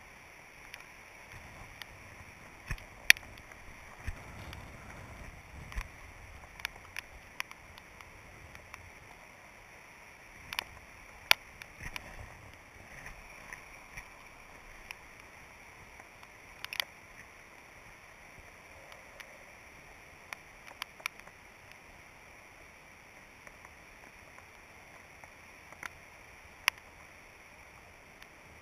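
Raindrops ticking sharply and irregularly on a waterproof action-camera housing, about one every second or two, over a faint steady hiss.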